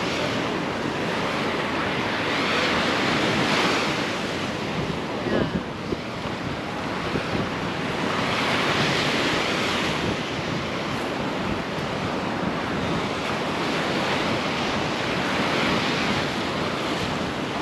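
Ocean surf breaking on a beach: a continuous rushing noise that swells and eases every few seconds, with wind buffeting the microphone.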